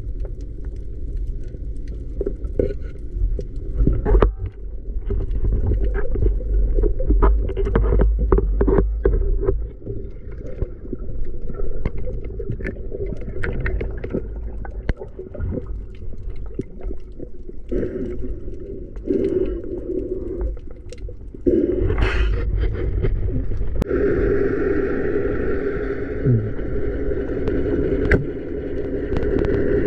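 Low, even underwater noise with many small clicks and knocks from handling the speargun and the speared fish. About three quarters of the way through, a steady higher hum joins in.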